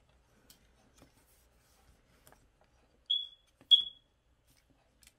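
Two short, high electronic beeps about half a second apart, each trailing off, over faint clicks from a plastic model kit being handled.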